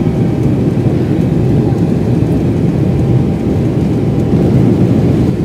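Steady, loud low rumble inside the cabin of an Embraer E-190 jet airliner under takeoff power: the twin turbofan engines and rushing airflow.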